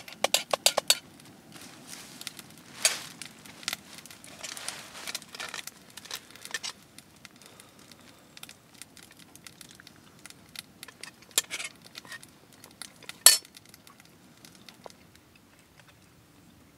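Cooking utensils and cookware clinking and knocking against each other as a meal is cooked: a quick run of clinks in the first second, then scattered single clinks, with one louder knock near the end.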